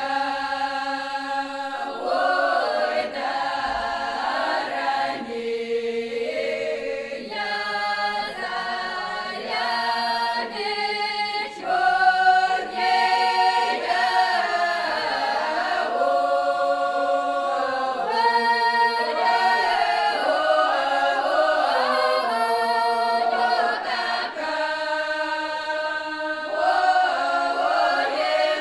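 Folk choir singing a traditional Kuban Cossack song a cappella in several voice parts, with held notes and no pauses.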